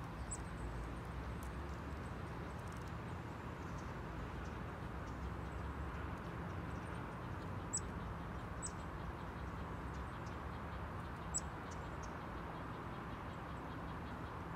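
A chestnut-backed chickadee giving a few short, very high-pitched calls: one near the start, two in quick succession past the middle and one later. Under them is a steady hiss and low rumble of outdoor background noise.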